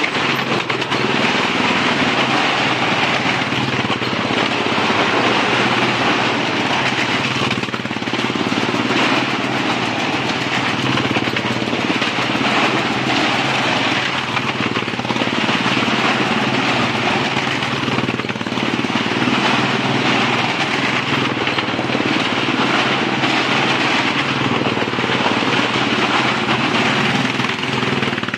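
Motorcycle engines running loud and steady as riders circle the wall of a well-of-death stunt show.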